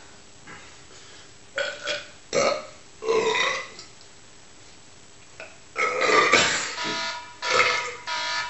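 A man belching after drinking beer: a string of separate burps, a few short ones in the first half and a louder, longer run of them about six seconds in. Near the end an electronic alarm starts beeping in steady pulses.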